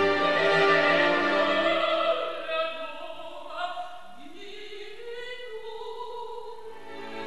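Symphony orchestra and choir performing. The music is loud and full for the first couple of seconds, then drops to a quiet passage in which a single line rises and holds.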